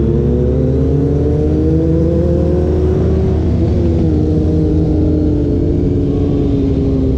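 Motorcycle engine running under way on the road, its pitch climbing gently for about three seconds and then easing off, over a heavy low rumble of wind on the microphone.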